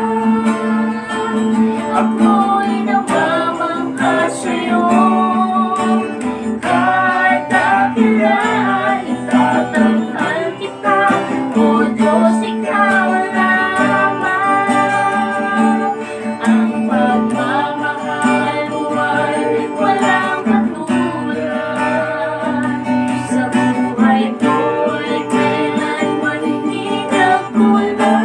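A man and a woman singing a worship song together, accompanied by a strummed acoustic guitar.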